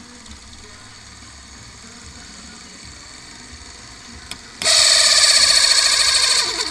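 Electric motor driving a BMW R68 speedometer on a test rig: a faint steady whirr, then about four and a half seconds in a loud high-pitched whine starts abruptly and holds for about two seconds. It winds down with falling pitch at the very end.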